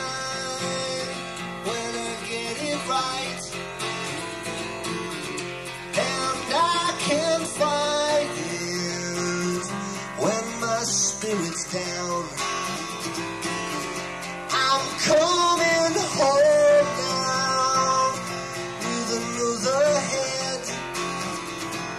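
Live music: guitar playing with a voice singing along.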